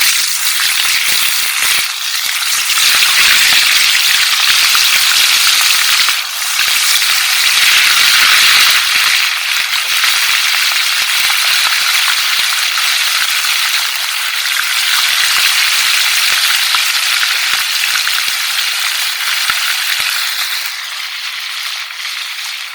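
Fish frying in hot oil: a loud, steady sizzle with fine crackling, easing slightly near the end.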